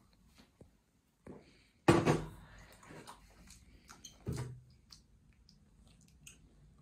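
Glasses and a beer bottle being handled on a table: a sudden heavy thump about two seconds in, a second knock a couple of seconds later, and scattered small clinks and ticks.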